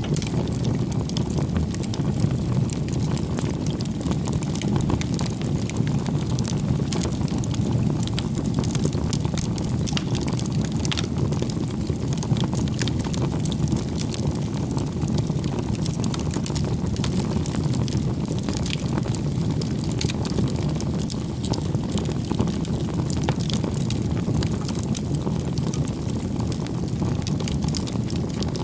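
Wood campfire burning: a steady low rush of flame with frequent small crackles and pops.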